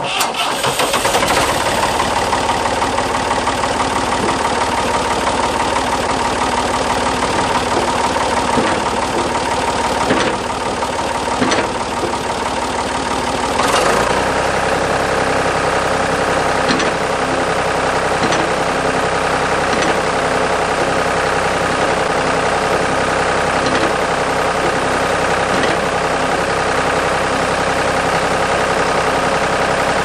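Ford 555 backhoe engine starting and then running steadily. About fourteen seconds in its note changes and deepens. A few light clicks are heard over it.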